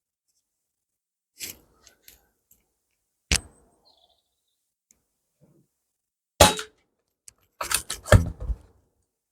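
PCP air rifle being fired and worked: sharp, short shot reports and metallic clicks, a single loud one about three seconds in, another past six seconds, then a quick cluster near the end, with dead quiet in between.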